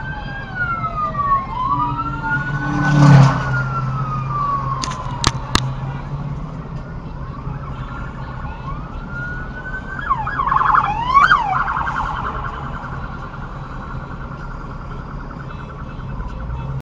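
Police car siren sounding a slow rising and falling wail, switching to a rapid yelp about ten seconds in and then a fast warble, over steady traffic noise. A loud burst of noise comes about three seconds in, with a few sharp clicks shortly after.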